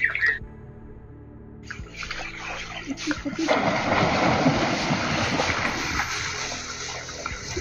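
Water splashing and sloshing as sambar deer wade through a shallow pool: irregular splashes start about two seconds in, grow louder and busier around the middle, then ease off. A short high-pitched sound comes right at the start.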